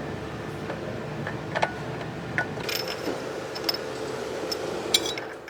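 Scattered light metallic clicks and taps as engine timing parts are handled and fitted, over a steady background hum.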